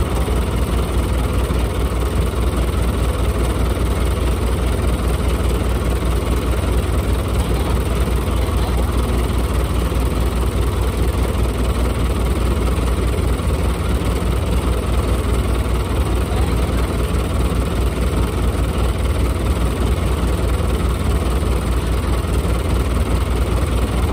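Crawler tractor's diesel engine running steadily at low revs, a deep even throb with no change in speed.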